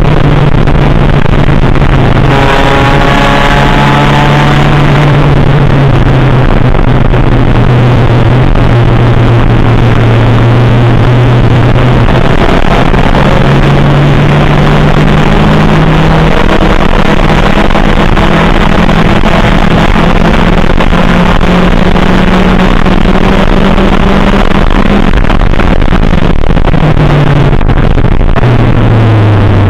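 Race car engine at racing speed, heard from inside the cabin. Its note climbs and falls with throttle and gear changes and drops lower near the end. The recording is overloaded and distorted.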